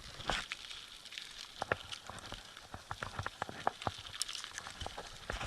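Raindrops tapping irregularly on a surface close to the microphone, a scatter of sharp ticks over a faint hiss of rain.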